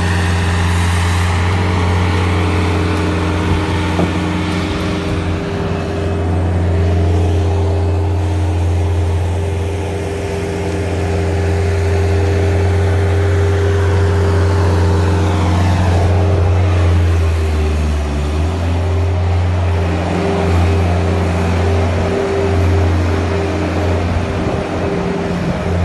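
Bobcat skid-steer loader's engine running steadily and loud, its pitch dipping briefly about two-thirds of the way through, with a higher whine that glides down in pitch just before the dip.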